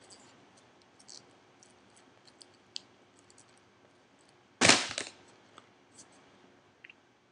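Raw spinach leaves being chewed and handled close up: scattered small crisp crackles, with one loud burst of crackling about four and a half seconds in.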